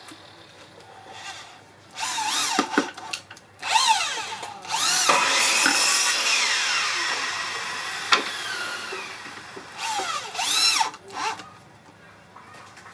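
Cordless drill driving screws into hardwood, run in four trigger bursts: each time the motor whines up to speed and winds back down. The longest burst, about three seconds, drops steadily in pitch as the screw draws in and loads the motor.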